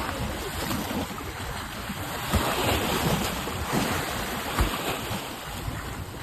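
Ocean surf: waves breaking and washing in a continuous rush, with short low thumps of wind buffeting the microphone.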